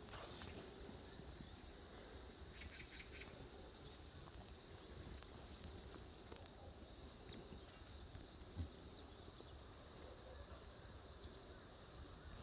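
Quiet outdoor farm ambience with a faint steady hiss and a few faint, short bird chirps now and then, and one soft low knock about eight and a half seconds in.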